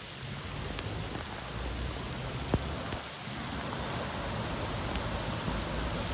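Steady rain falling onto floodwater, with scattered sharp drop taps, the clearest about two and a half seconds in.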